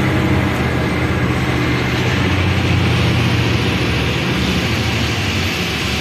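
Heavy diesel dump truck running with its bed tipping up to unload soil, a steady low engine hum that eases after about four seconds while a hiss grows near the end.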